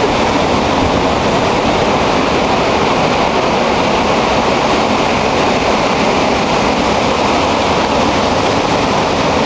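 Hurricane Gustav's winds gusting through the trees, a loud, steady rush with the wind buffeting the microphone.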